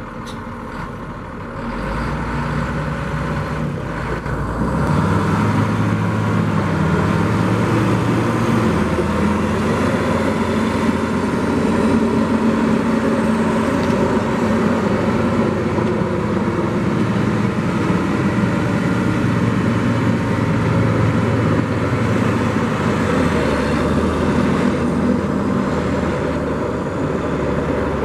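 Caterpillar 140H motor grader's diesel engine running as the grader drives. It grows louder over the first five seconds, then runs steadily, with the pitch dropping a step about a third of the way in and again near the end.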